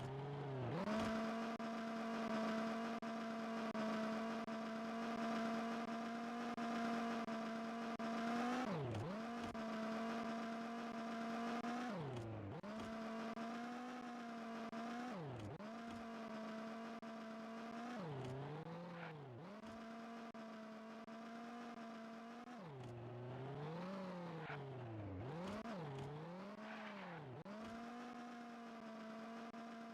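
A continuous, engine-like pitched drone that mostly holds one steady pitch, then dips and swoops back up several times in the second half.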